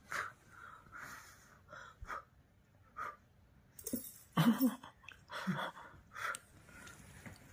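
Short breathy puffs and sniffs from a person, with a louder brief voiced cry about four and a half seconds in, as a kitten tugs at her hair.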